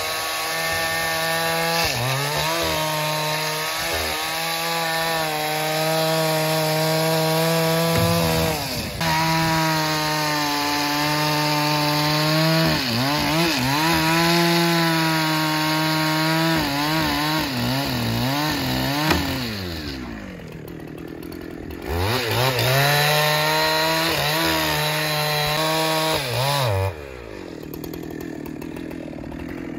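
Sawmill saw cutting timber under power. Its running note sags and recovers several times as the blade loads in the wood, and it falls away twice, about two-thirds of the way in and again near the end.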